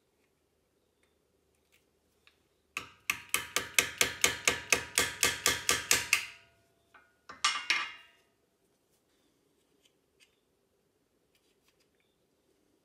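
A ball-peen hammer tapping quickly on a screwdriver wedged into the seam of a plastic iPhone charger, metal on metal with a ringing tone, about five taps a second for some three seconds, then a short second run of a few taps. The screwdriver is being driven in to pry open the charger's welded case.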